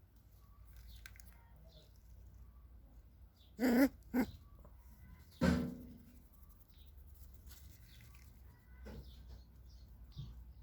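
Fox terrier barking: two short sharp barks about four seconds in, then a longer one a second and a half later.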